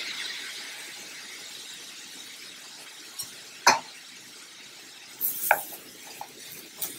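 Diced apples sizzling in melted butter in a stainless steel skillet, the sizzle dying down over the first second or two. A sharp knock about halfway through, then a few clacks and scrapes of a wooden spoon against the pan near the end as the apples are folded.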